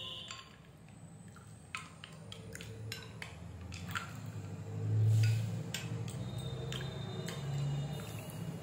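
Steel ladle stirring a sattu drink with ice in a glass bowl, giving scattered clinks against the glass and ice along with the slosh of the liquid.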